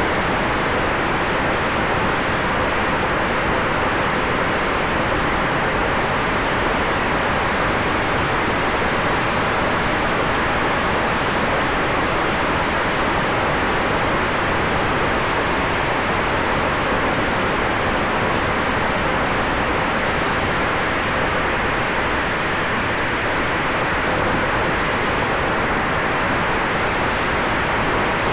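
Onboard audio from an electric RC model F4U Corsair in flight: a steady rush of wind over the microphone, with a faint steady hum from the electric motor and propeller.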